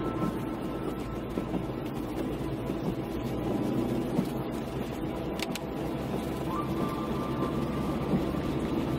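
Car driving on a wet road in the rain: a steady hiss of tyres on wet tarmac over a low, even engine and road hum.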